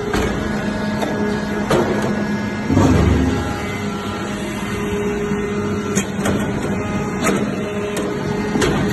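Hydraulic metal-shavings baler running: a steady machine hum with sharp knocks every second or two, and a louder low thud about three seconds in.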